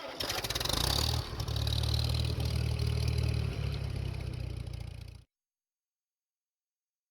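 Farm machine engine running steadily with a strong low hum and some clatter; it cuts off abruptly about five seconds in.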